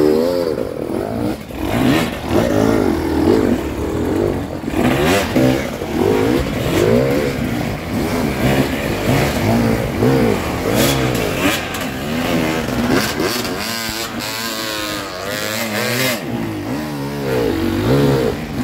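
Several enduro dirt bikes climbing a steep slope, their engines revving up and falling back again and again as the riders work the throttle.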